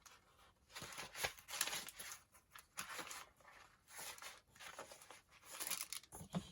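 Sheets of paper being handled and shuffled as they are sorted into a stack: soft rustling in short bursts with brief pauses between.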